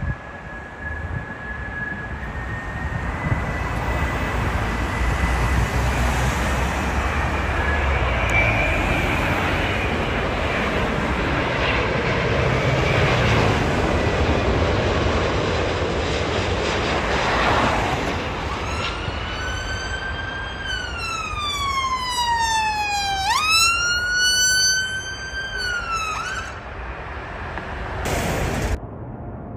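Jet engines of a Boeing 787 airliner passing low, a steady rushing rumble with a faint whine. About two-thirds of the way in an emergency-vehicle siren wails over it, sweeping down in pitch twice before it stops.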